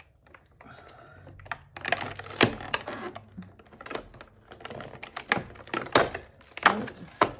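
Cardboard advent-calendar door, held shut with tape, being pried and torn open and handled: a run of irregular sharp clicks and taps.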